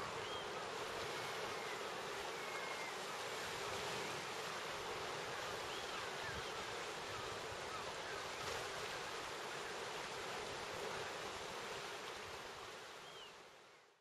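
Steady wash of sea and surf noise with faint gull calls now and then. It fades out near the end.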